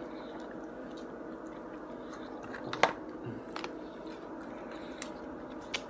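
A person chewing food, with a few sharp clicks (the loudest about three seconds in) over a steady low room hum.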